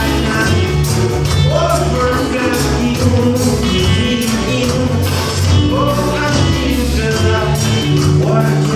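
Band music with a steady drum beat, a heavy bass line and a melody carried over it, without lyrics being sung clearly.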